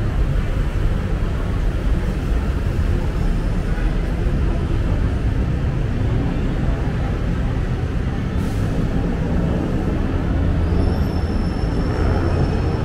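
Steady low rumble of city vehicle traffic, with a faint high whine joining near the end.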